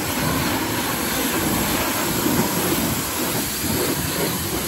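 Giraffe Tools 2200 PSI electric pressure washer jetting water against a pickup truck's front grille and bumper: a steady, loud hissing rush of spray.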